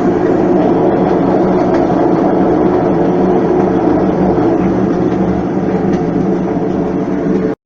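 Mabe ID System 4.0 washing machine in its spin cycle, making a loud, steady mechanical noise with a hum of several steady tones that cuts off abruptly near the end. This is the excessive spin noise of a transmission whose bearings are damaged because its seals have let water in and washed out the grease.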